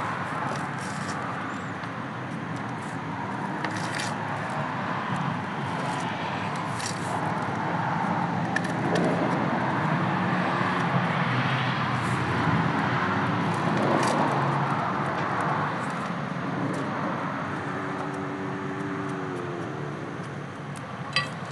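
Steady outdoor background noise, a hiss and rumble like distant traffic, with scattered faint clicks and scrapes of small knives peeling an onion and potatoes by hand.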